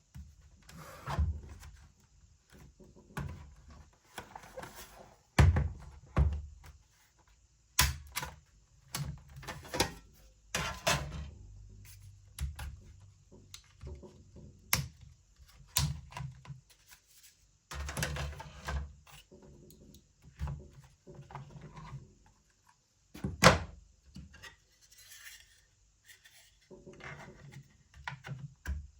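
Hands working on an HP EliteBook 850 G2 laptop during an SSD install: a long run of separate sharp clicks, knocks and thunks, with scraping and rubbing in between, as the laptop's plastic and metal parts are handled. The loudest knocks come about five seconds in and again about twenty-three seconds in.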